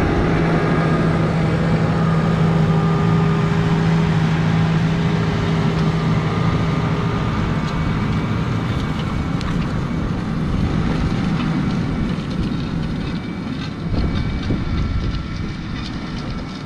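Massey Ferguson 5S.115 tractor's diesel engine running steadily with a strong, even hum. Past the middle the hum grows fainter and rougher.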